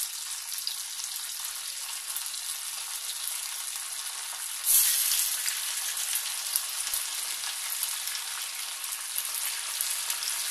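Chicken pieces deep-frying in hot oil in a steel kadai, a steady sizzle. About five seconds in it suddenly flares louder as more pieces go into the oil.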